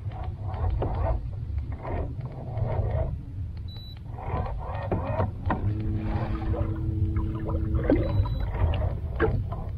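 Low steady rumble, typical of wind on the microphone, with scattered clicks and knocks from handling the rod and boat. A steady pitched hum joins for about two seconds past the middle.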